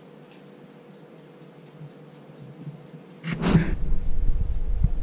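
Faint room hiss, then about three seconds in a sudden rumbling with a short rushing burst and irregular knocks: handling noise on the microphone of a handheld camera.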